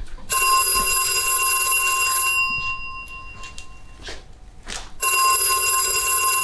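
Telephone bell ringing twice: one long ring of about two seconds just after the start, and a second ring about five seconds in.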